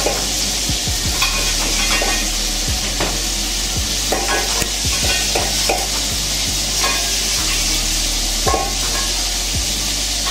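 Chicken deep-frying in hot oil in a Presto deep fryer, a steady sizzle, with scattered clicks and light knocks over it.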